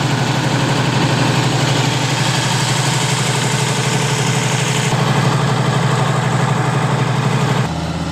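Kubota combine harvester's diesel engine running steadily under load, a loud dense drone with a pulsing low note; near the end the sound drops abruptly to a quieter, lower hum.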